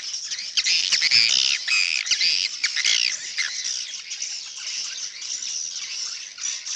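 Many swiftlets chirping and twittering at once inside a swiftlet nesting house, a dense stream of short, high, overlapping calls. It is busier and louder in the first half, then thins out a little.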